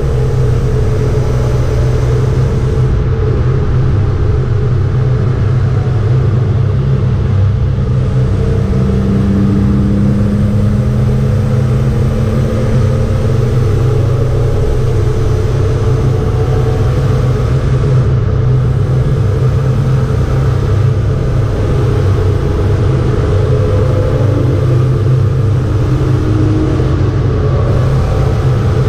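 BMW 325 E36 race car's straight-six engine heard from inside the cabin, running hard at speed on track as a steady, loud low drone mixed with road noise.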